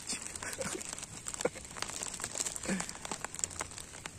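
Rain pattering: a scatter of irregular crackling ticks over a steady hiss.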